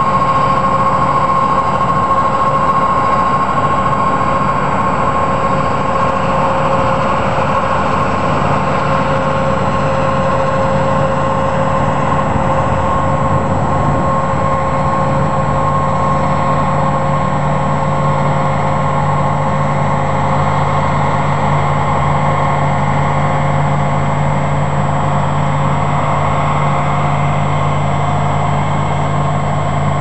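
Combine harvester at work, its engine and machinery running as a steady drone with an even whine over it.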